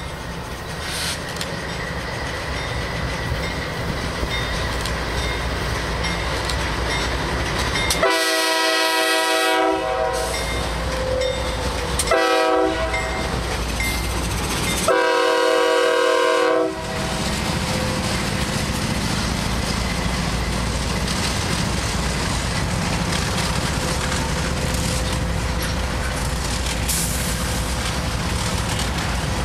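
CSX freight train passing at close range: diesel locomotives rumbling by, the lead engine's horn sounding three times, long, short, long, about 8 to 17 seconds in, then covered hopper cars rolling past with a steady rumble and clatter of wheels on rail.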